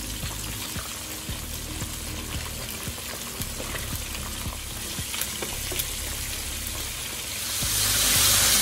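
Breaded fish pieces frying in hot oil in a cast iron skillet: a steady sizzle with many small crackling pops, growing louder near the end.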